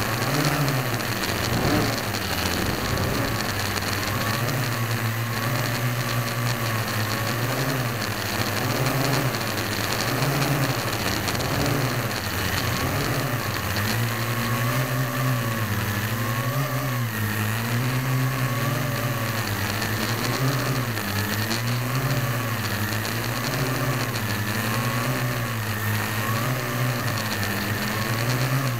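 Parrot AR.Drone v1 quadcopter in flight, its four electric motors and geared propellers running up close to the hull-mounted camera. The steady hum wavers up and down in pitch every second or so as the motors speed up and slow down to hold and steer the drone.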